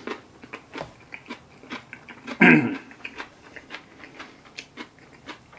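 Close-up mouth sounds of a man chewing a forkful of spaghetti: a run of short, wet clicks and smacks. About two and a half seconds in comes a brief low voiced sound from him, falling in pitch, the loudest moment.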